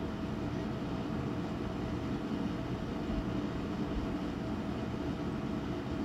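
Steady low mechanical drone with a faint, unchanging hum.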